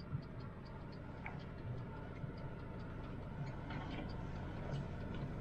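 Honda City's turn-signal indicator ticking steadily in the cabin, heard over the low hum of the petrol engine as the car is manoeuvred into a parking spot.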